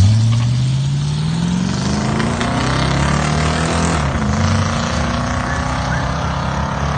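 Car V8 engine accelerating, its pitch climbing steadily for about four seconds, then dropping briefly and running on steady at a higher pitch.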